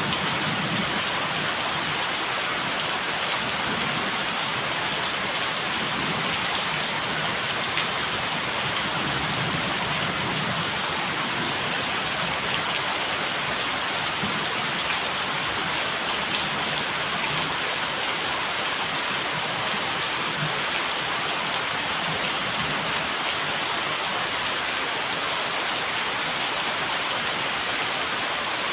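Steady, fairly loud rain falling, an even hiss that does not let up.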